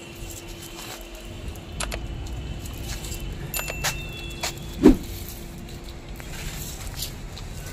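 Taped, foam-insulated copper AC pipe bundle being pushed down into a PVC conduit against a brick wall: scattered light clicks and rattles as it rubs and knocks at the pipe mouth, with one louder thump about five seconds in. A steady low hum runs underneath.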